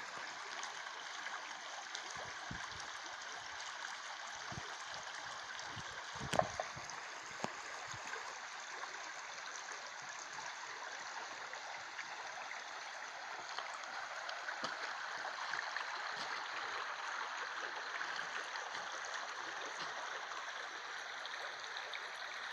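Small forest river running over shallow riffles around a fallen log: a steady rush of flowing water. A single brief knock about six seconds in.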